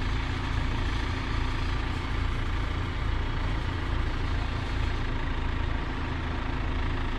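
A vehicle engine idling steadily, with no revving.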